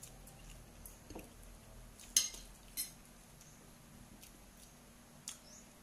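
Fingers pressing rice against a ceramic plate, nails and fingertips clicking and scraping on the plate now and then; a few short, sharp clicks, the loudest about two seconds in.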